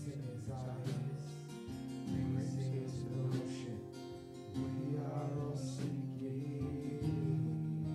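Church worship music led by a strummed acoustic guitar, the chords changing every two to three seconds.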